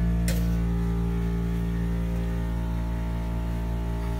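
A steady low electrical hum, unchanging throughout, with one sharp click just after the start, under faint background music.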